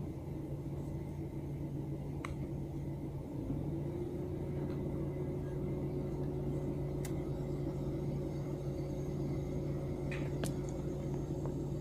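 Steady low hum inside a parked car's cabin, with a few faint clicks.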